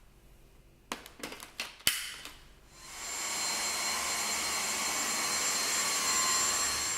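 A few sharp plastic clicks, the loudest about two seconds in, then a Dyson V6 cordless stick vacuum switches on about three seconds in: its motor runs up within a fraction of a second to a steady high-pitched whine over rushing air.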